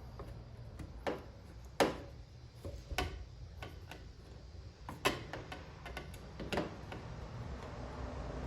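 A few sharp clicks and light knocks at uneven intervals, the strongest about a second in, about two seconds in, at three, at five and at six and a half seconds: small mirror-bracket hardware being handled and fitted by hand, over a low steady background hum.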